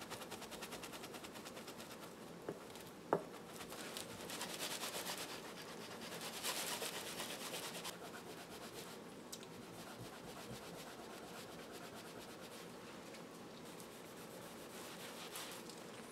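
Cloth rubbing and polishing the black front panel of a crystal radio in quick scrubbing strokes, a little louder from about four to seven seconds in. A single sharp click sounds about three seconds in.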